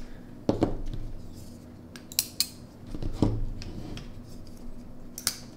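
Folding pocketknives being handled and set down on a desk mat: about five short metallic clicks and light knocks, spread out over a few seconds.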